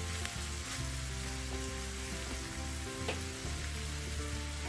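Cabbage, spring onion and chilli paste sizzling steadily in a hot nonstick frying pan, with a few light scrapes of a plastic slotted spatula stirring it in the first second.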